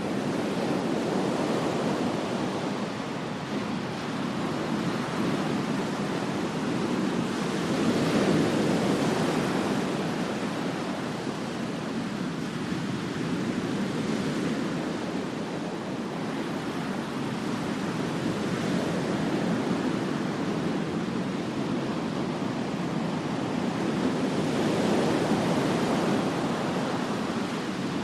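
Ocean waves breaking on a sandy beach: a steady wash of surf that swells as larger waves break, once about eight seconds in and again near the end.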